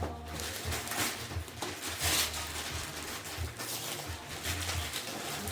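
Gift wrapping paper rustling and tearing as a present is unwrapped, with a louder rip about two seconds in.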